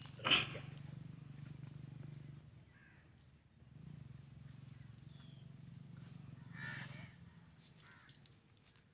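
Harsh bird calls, crows cawing, over a steady low hum. The loudest caw comes just after the start, with fainter ones about three seconds and six and a half seconds in.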